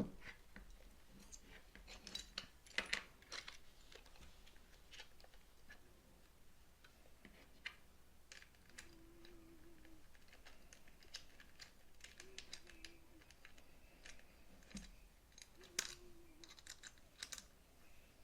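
Faint, scattered clicks and taps of a metal camera cage being handled and fitted onto a Sony FX3/FX30 camera body.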